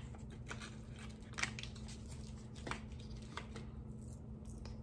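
Sparse, faint clicks and crackles as Pop Rocks are spooned from a paper cup and eaten, with a few irregular sharp ticks a second or so apart.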